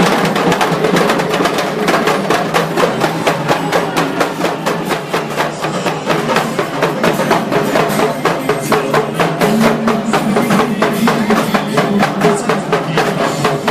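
Percussion music with a fast, steady beat of drum and wood-block-like strikes, about four a second.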